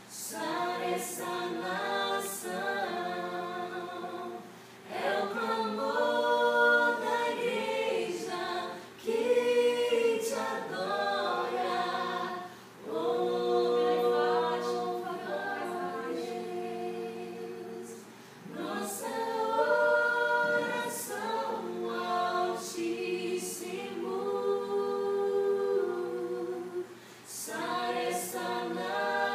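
A group of voices singing a slow worship song, apparently unaccompanied, in long held phrases with short breaks for breath between them.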